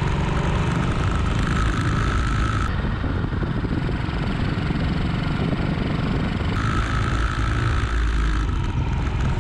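1941 Matchless G3L WD motorcycle's single-cylinder engine running steadily on the move, mixed with wind rush on the microphone.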